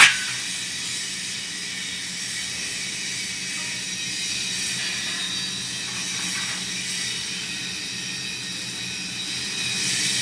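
Steady hissing factory background noise with a constant low hum underneath.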